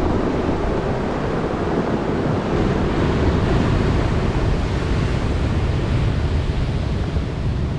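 Ocean surf surging and breaking on a rocky shore: a dense, continuous rush of water, with wind buffeting the microphone.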